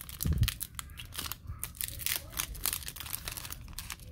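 Foil trading-card pack wrapper crinkling and crackling in the hands as it is squeezed and torn open, with a dull low bump about half a second in.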